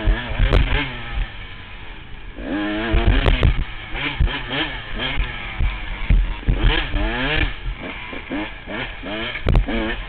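Honda CR125 two-stroke dirt bike engine revving hard and easing off again and again, its pitch climbing and dropping every second or so through the gears, with a heavy low rumble underneath and a few sharp clicks.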